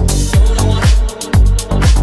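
Dance music with a steady kick drum about two beats a second over a deep bass line.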